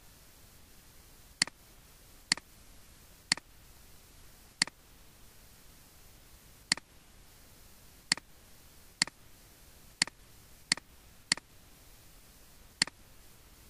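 Computer mouse button clicking: eleven sharp single clicks at irregular intervals about a second apart, over a faint background hiss.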